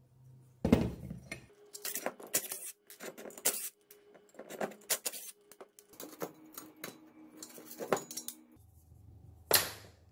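Metal parts of a dismantled model jet turbine engine being handled: irregular clinks, taps and knocks as the perforated combustion chamber and nozzle guide vane ring are turned and fitted together, with a louder knock about a second in and another near the end.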